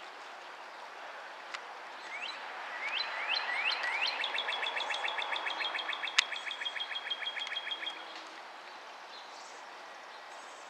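A songbird singing: a run of rising chirps that speed up into a fast, even trill, ending around eight seconds in. A single sharp click sounds about six seconds in.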